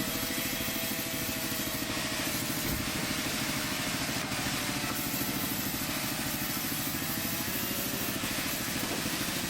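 Plywood cutting saw machine running steadily, a continuous mechanical drone with a fast low rattle and a couple of steady tones.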